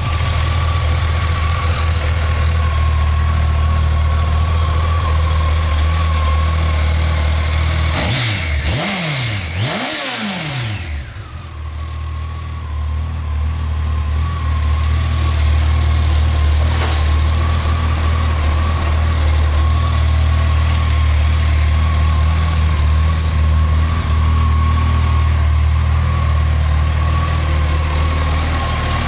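Honda CBR1100XX Blackbird's inline-four engine idling steadily, blipped twice about eight seconds in so that the revs rise and fall twice before it settles back to idle.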